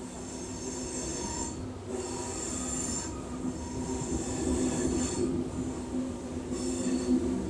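Railcar wheels squealing against the rail in four high-pitched stretches, over the steady rumble of a loaded coal train's cars rolling past close by.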